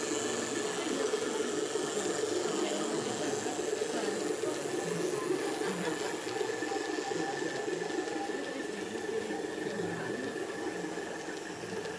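Steady, indistinct crowd chatter of an exhibition hall, with a thin steady high tone running through it.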